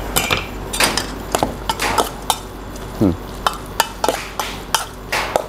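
A metal spoon stirring a wet minced raw-beef salad in a stainless steel pot, with irregular sharp clinks of the spoon against the pot's side.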